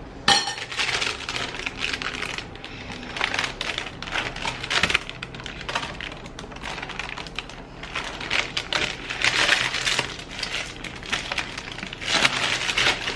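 Dense crinkling and crackling, a run of many small clicks with louder spells about three, nine and twelve seconds in, as an overstuffed stuffed meatloaf is worked closed by hand.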